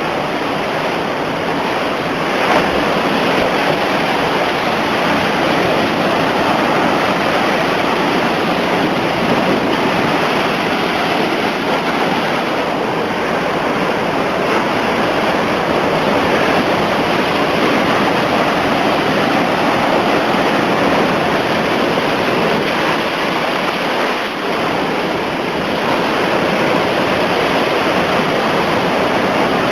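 Heavy surf from Hurricane Igor's storm swell breaking on the shore: a continuous, loud wash of crashing waves, with one sharper crash about two and a half seconds in.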